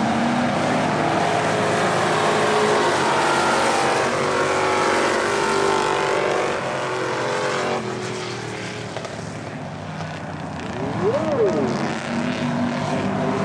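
Dirt-track stock cars racing, their engines running at speed in a dense, steady blend. About eight seconds in the engine noise drops, and near the end one engine note rises and falls.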